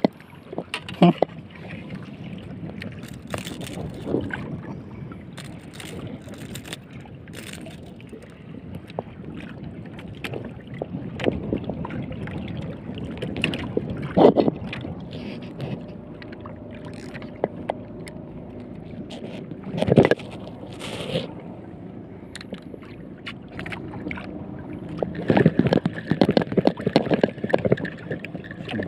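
Water lapping and sloshing against the hull of a small outrigger boat, with wind and a few sharp knocks of things bumping against the boat.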